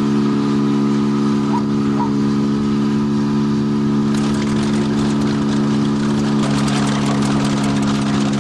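An engine running steadily at an even pitch. About four seconds in, a rough crackling and crunching noise joins it and carries on: a bulldozer crushing a running car.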